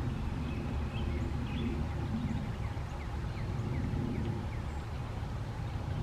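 Faint, quick, high chirps of small songbirds, several close together for a few seconds, over a steady low rumble.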